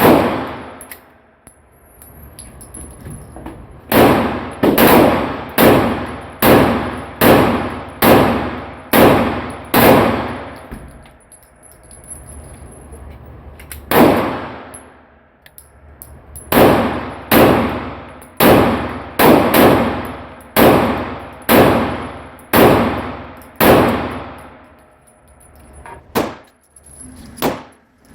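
Glock 17 9mm pistol being fired: single shots and two strings of about ten shots at roughly one and a half a second, each sharp crack trailing off in a ringing decay.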